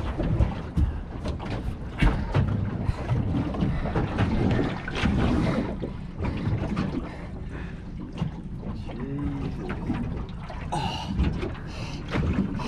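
Low rumble of wind and water around a small open boat, broken by many short knocks and clatters on the deck and hull.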